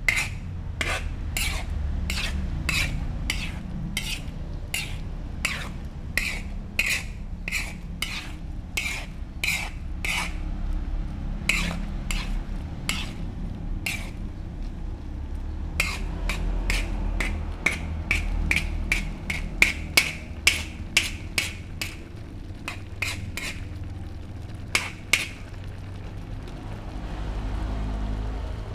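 Metal spoon stirring and scraping in a metal wok, a run of sharp clicks about two a second, with a short pause in the middle and stopping near the end, over a low steady rumble.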